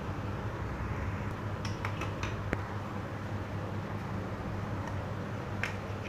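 A few sharp, light clicks and taps from the 12 V charger adapter and its wires being handled, a cluster about two seconds in and one or two more near the end, over a steady low hum.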